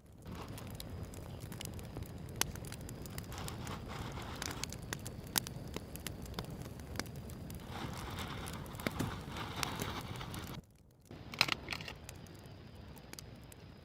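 Small campfire of dry leaves and twigs crackling as it catches, with many sharp irregular snaps over a steady hiss.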